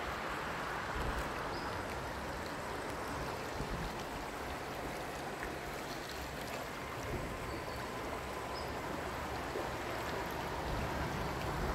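Steady rush of a shallow, rocky stream, with a faint thin whine now and then from the RC model yacht's brushless electric motor.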